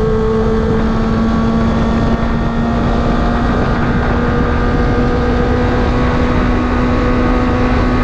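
Kawasaki ZX-25R's 249 cc inline-four running at a steady, even pitch through an aftermarket exhaust while riding, with wind rushing over the microphone.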